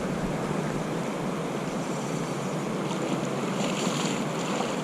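Steady rush of moving water, with wind buffeting the microphone, and a brief sharper hiss about three and a half seconds in.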